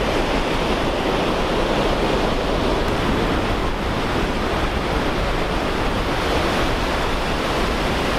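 Ocean surf breaking and washing up the sand in a steady rush, with wind buffeting the microphone as a low rumble.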